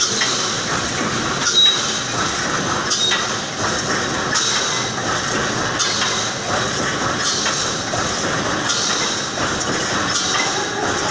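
Reinforcing mesh panel welding machine running, a steady mechanical noise with a sharp knock from its welding cycle about every second and a half.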